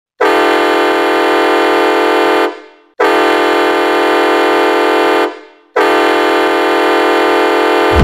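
Colorado Grit ice hockey goal horn sounding three long, steady blasts of a little over two seconds each, with short gaps between them: the signal that the home team has scored.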